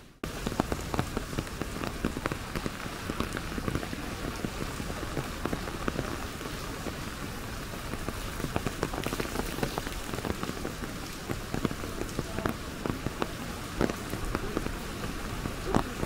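Raindrops hitting an umbrella overhead: a steady hiss of rain with many sharp, close drop taps. The sound cuts out briefly at the very start, then comes back.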